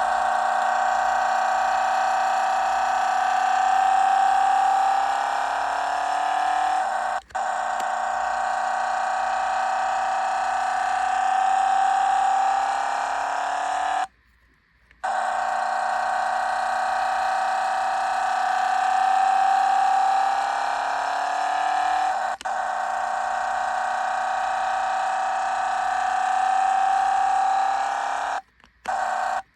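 Engine sound effect played through the tiny speaker of a toy 5-speed manual gear shifter: a simulated engine revs up slowly in pitch, drops at a gear change and revs up again, then cuts off for about a second and the same sequence plays again.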